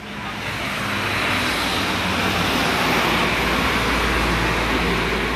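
Steady road traffic noise, a low rumble under a wash of hiss.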